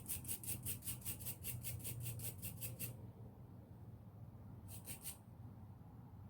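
A small brush scrubbing the teeth of a ratchet pawl: quick back-and-forth strokes at about five a second for three seconds, then a short burst of a few more strokes near the end.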